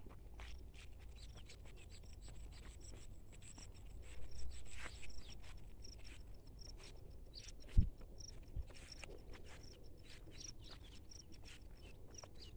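Quiet rural outdoor ambience by paddy fields: a short, high chirp repeats about twice a second over a low, steady rumble, with scattered soft clicks and rustles. There is a louder rustle around four seconds in and one sharp thump a little past the middle.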